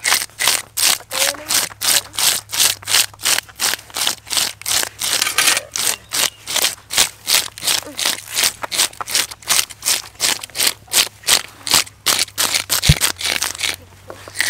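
Fish scales being scraped off large whole fish with hand-held toothed plastic fish scalers, in quick, regular rasping strokes, several a second.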